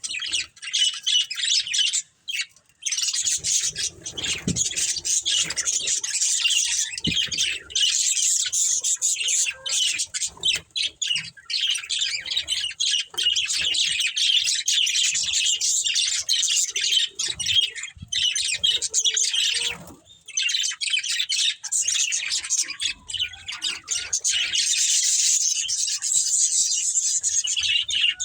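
Budgerigars chirping in a fast, almost unbroken high-pitched chatter, with short pauses about two seconds in and again near twenty seconds.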